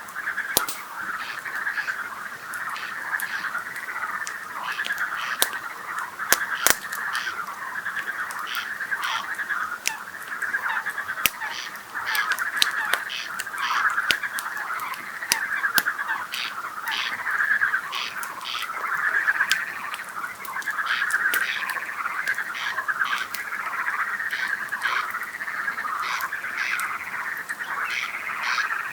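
A chorus of frogs croaking continuously in a dense, pulsing mass, with the sharp pops and crackles of a burning campfire scattered through it.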